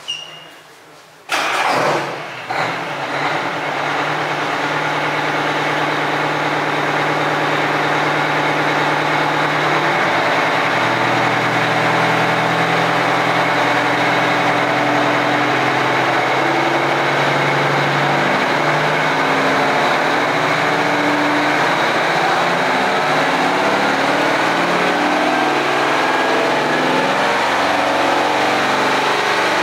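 Kenworth truck's diesel engine starting about a second and a half in with a sudden loud burst, catching unevenly for a couple of seconds, then running steadily.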